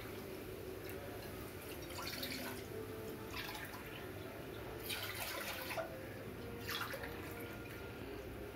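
Water poured from a stainless steel jug into a steel tumbler: a steady trickling stream filling the cup, with a couple of louder splashes.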